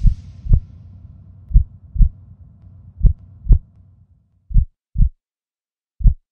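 Heartbeat sound effect: pairs of deep thumps about half a second apart, repeating about every second and a half.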